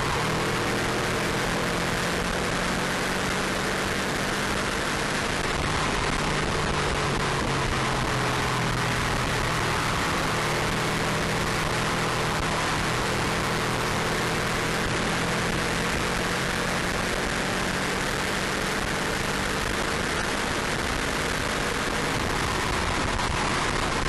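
Subaru Impreza WRX's turbocharged flat-four engine running at speed on track, its note drifting slowly up and down under a heavy, steady rush of wind and road noise on the car-mounted camera's microphone.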